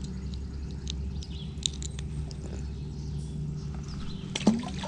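Light clicks of hands handling a lure and line, then a small fish splashing into the water once, about four and a half seconds in. Under it runs a faint steady low hum.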